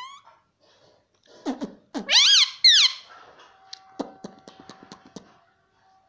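Indian ringneck parakeet giving two loud, high squawks that bend up and down in pitch, about two seconds in, after a couple of shorter calls. A run of sharp clicks follows.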